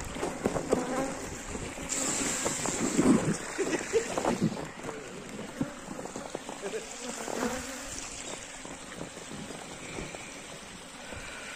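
Honeybees buzzing close around the microphone, the buzz swelling and fading as individual bees pass. They are agitated, defensive bees from a swarm chasing the beekeepers.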